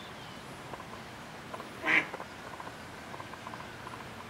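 A duck quacks once, short and loud, about two seconds in.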